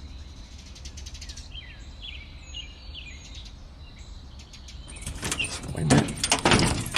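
Small birds chirping over a steady low outdoor rumble, with a quick run of clicks at the start. From about five seconds in, a series of louder scuffs and rustles, loudest near the six-second mark.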